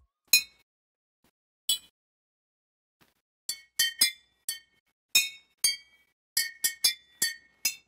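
Water xylophone of seven glass jars filled to different water levels, tapped one after another: clinking, ringing notes at different pitches. Two single taps come first, then a quicker, uneven run of about a dozen taps from about three and a half seconds in.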